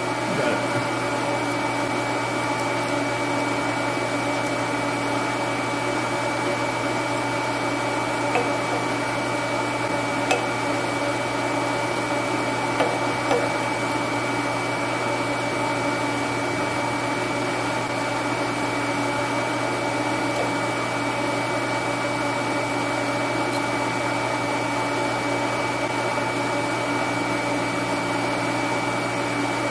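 Steady motor-driven whir with a constant high whine, from shop machinery running. A few light metallic clicks come from a C-clamp and a small part being handled on a steel bench, most of them in the middle stretch.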